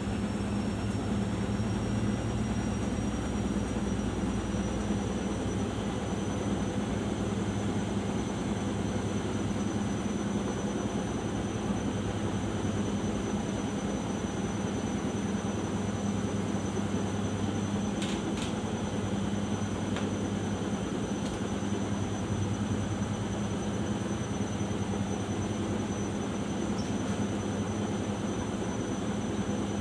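Arçelik 5083 washing machine in its final spin, the drum turning at high speed with a steady hum and a high motor whine that climbs slightly in the first few seconds and then holds. A couple of faint clicks come about two-thirds of the way through.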